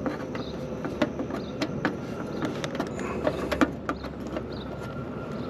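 Wires and terminals being handled inside an air conditioner's electrical compartment: scattered light clicks and rustles over a steady low hum.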